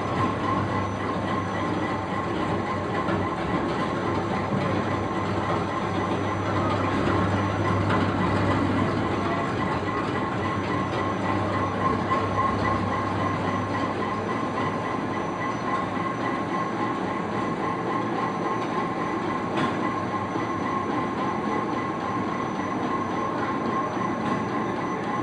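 Briquetting line running steadily while pressing shredded cardboard and sawdust into a continuous briquette log. It makes a constant mechanical din with a steady whine over it, and its low hum eases about halfway through.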